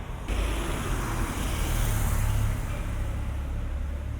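A road vehicle passing close by: a rush of engine and tyre noise that comes in suddenly, is loudest about two seconds in, then fades, over a steady low rumble of traffic.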